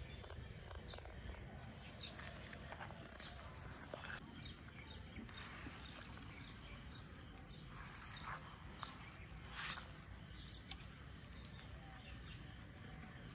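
Faint rural outdoor ambience: birds chirping in many short repeated calls over a steady high-pitched insect drone, with a couple of louder chirps a little past halfway.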